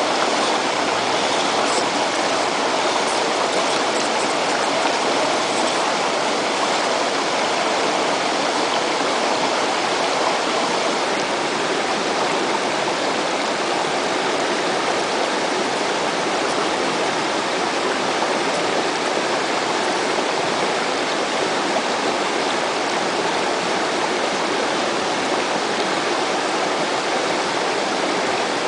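Rocky stream running over boulders: a steady rush of water.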